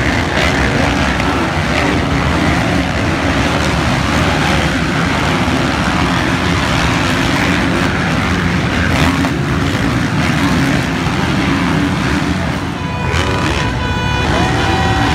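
Motocross dirt bike engines racing on the track, several bikes revving and running at once in a loud, continuous drone. Near the end a steady high tone with several pitches joins in.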